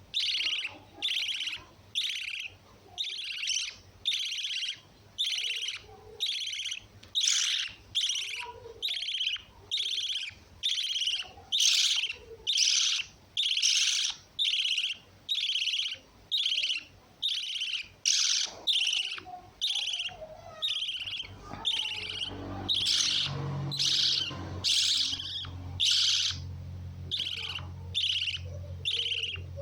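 Lovebird giving shrill, repeated chirps at an even pace of about one and a half a second. A steady low hum joins about two-thirds of the way through.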